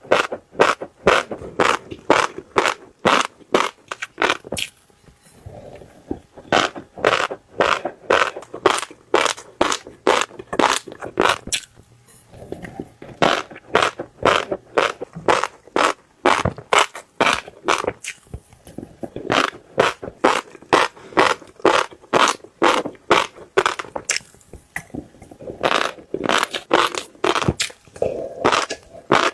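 Fish roe crunched and chewed close to the microphone: a quick run of sharp pops and crunches, about two or three a second, with a few short pauses.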